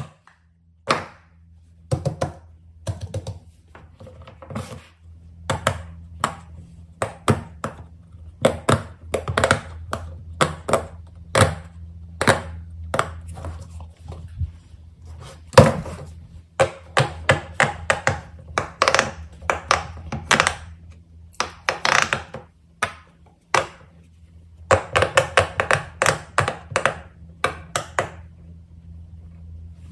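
Fidget toys, silicone pop-its above all, being pressed and handled: a long irregular run of dull pops, taps and thunks, some in quick clusters, over a low steady hum.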